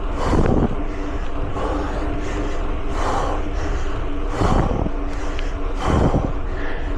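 Mountain bike riding heard from the action camera: steady rolling and wind noise with a faint hum, and a rushing swell about every second and a half.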